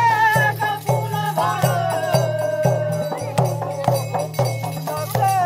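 Netuwa dance song of the Musahar: a man singing long, wavering notes that slide down in pitch, over a barrel-shaped hand drum beaten in a steady rhythm with sharp rattling strokes.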